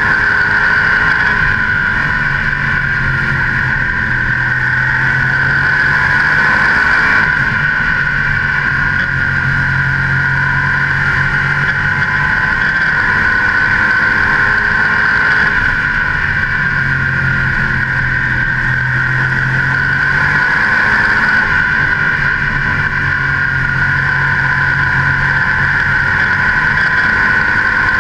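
Modified race car's V8 engine running hard at racing speed, heard from a camera mounted on the hood beside the air cleaner. The low engine note swells and eases every few seconds as the car goes through each straight and turn of the oval.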